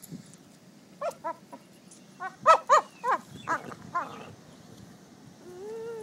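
A dog's play vocalisations, its "monkey sounds": a quick run of about nine short, high yelping whoops, loudest in the middle, followed near the end by one longer drawn-out whine.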